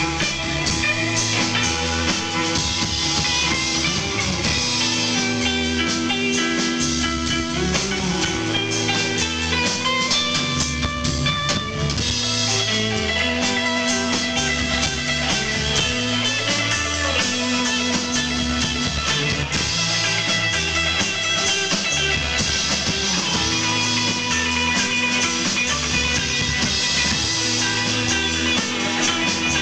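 Live rock band playing an instrumental stretch without vocals: guitar over bass and drums, with a repeating bass line.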